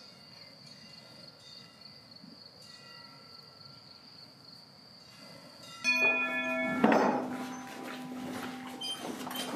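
Faint and steady for the first six seconds. Then a large brass cowbell hanging from a cow's neck clangs suddenly and keeps ringing, several bright tones sounding together and dying away slowly.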